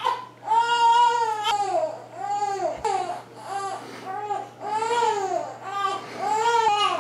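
Young child crying: a run of about eight wails, each rising and falling in pitch, some long and some short.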